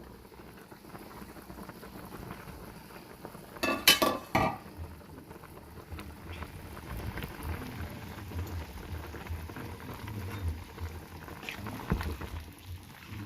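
Pot of soup boiling, a steady bubbling with a low rumble. A brief loud clatter about four seconds in.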